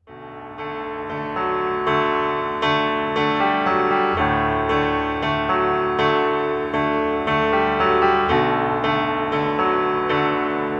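Piano music: a new piece begins right at the start with notes struck about twice a second, and low bass notes come in about four seconds in.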